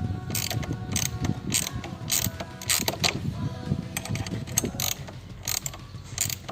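Ratchet clicking in irregular strokes as screws are driven in to fasten a soft-top rail to a Jeep Wrangler TJ.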